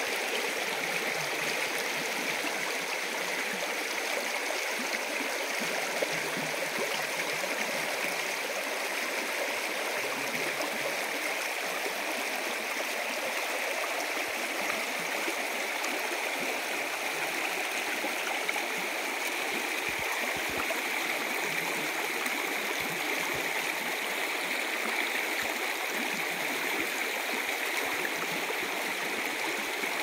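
Shallow, fast stream flowing over rocks: a steady rushing and rippling of water that does not change.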